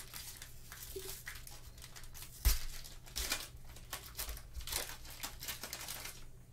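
Foil trading-card pack wrapper crinkling and tearing as it is ripped open, with a sharp thump about two and a half seconds in.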